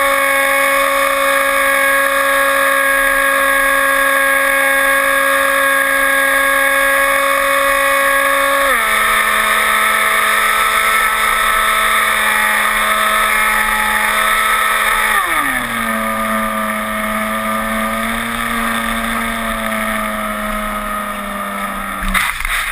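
Electric motor and propeller of an RC airplane, powered by a lithium-polymer battery, whining at a steady pitch, then stepping down in pitch twice as the throttle is pulled back. Near the end a short burst of noise as the plane comes down into the snow.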